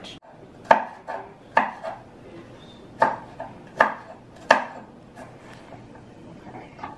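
Chef's knife chopping a green bell pepper on a wooden cutting board: irregular sharp knocks of the blade striking the board. There are about six loud strikes in the first four and a half seconds, then lighter, quieter cuts.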